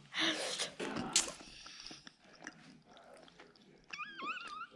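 Close-up chewing of a mouthful of chicken Alfredo pasta, with a loud noisy scuff in the first second and soft clicks after. Near the end comes a brief high, wavering squeal.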